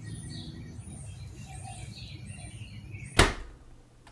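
Small birds chirping in short repeated calls over a steady low rumble, then one loud thump a little after three seconds in that dies away quickly.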